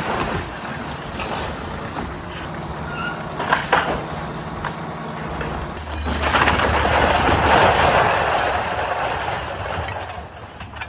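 Excavator engine running steadily during house demolition, with a few sharp knocks about three and a half seconds in. Louder crunching and rumbling of breaking material follows from about six seconds.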